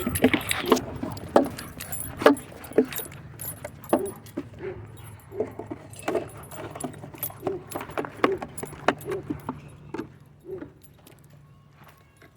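Light metallic jingling and clicking in irregular strokes, a few a second, over a low steady hum. It fades out about ten seconds in.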